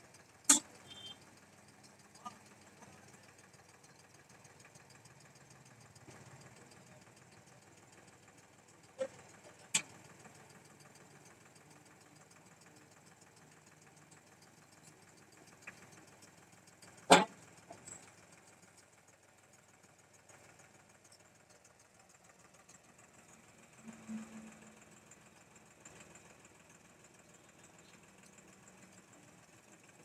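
A few sharp metal clanks, the loudest about seventeen seconds in, as a concrete mixer is loaded onto a trailer by a tractor-mounted hydraulic crane. Beneath them a tractor engine runs faintly.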